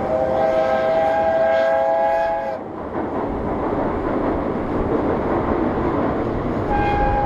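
Steam locomotive whistle of the 8620-class engine hauling the SL Hitoyoshi: a long blast of several pitches at once that cuts off sharply about two and a half seconds in, then a steady rushing noise, with a second blast starting near the end.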